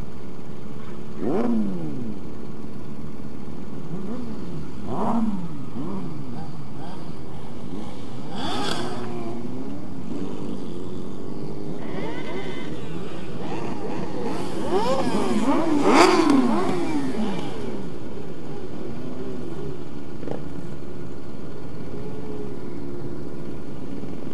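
A pack of sport motorcycles riding together, engines revving up and down in turn, with the loudest burst of revs about two-thirds of the way in. Steady wind rush sits underneath from riding at speed.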